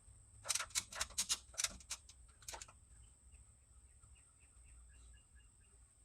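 A quick run of about a dozen sharp taps or clicks in the first two and a half seconds, then faint, short bird chirps repeating over the next few seconds.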